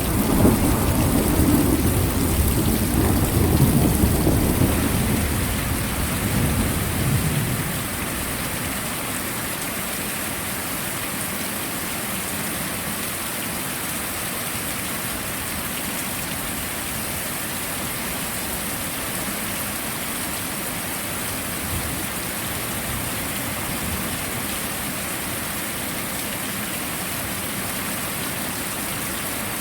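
Heavy rain falling steadily, with a low rumble of thunder at the start that fades away over the first eight seconds or so, leaving an even rain hiss.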